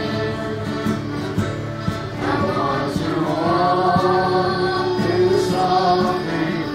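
A young boy singing a Newfoundland song, holding long notes, with other voices singing along underneath.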